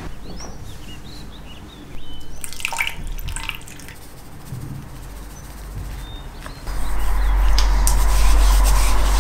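Water splashing and dripping in a glass bowl as a beetroot is rinsed and rubbed by hand. About seven seconds in, a louder steady rushing noise sets in.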